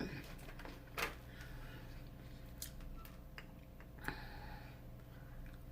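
A few soft clicks and taps over a steady low room hum; the sharpest click comes about a second in, with smaller ones spread through the rest.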